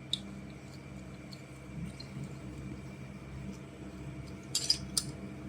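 Plastic magnetic building tiles clicking together as they are pushed into place: one click just after the start and a quick run of sharp clicks near the end, over a steady low hum.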